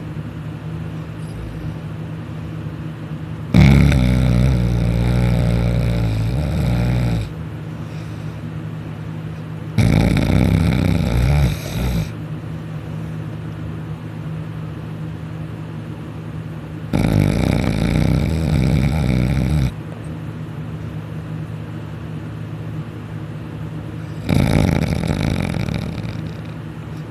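A person snoring loudly in deep sleep: four long snores, each two to four seconds, coming about every seven seconds, with a steady low hum between them.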